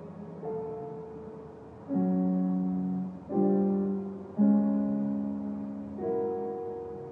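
Piano music: five slow chords, each struck and left to ring and fade, the fourth the loudest.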